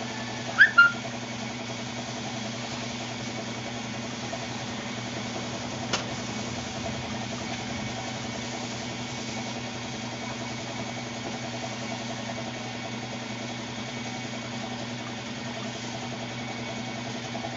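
Air compressor running steadily with an even hum, feeding a paint spray gun. Two brief sharp sounds come under a second in, and a single click at about six seconds.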